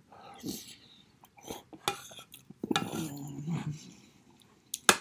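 Eating from a stainless steel saucepan: mouth sounds of chewing and a metal spoon clicking and scraping against the pot several times, with a short low hum of the voice about three seconds in.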